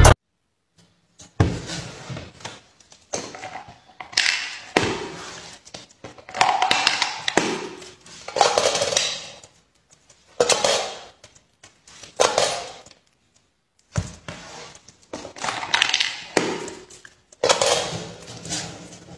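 Coins clinking and rattling against a tin coin bank, in short irregular bursts every second or two.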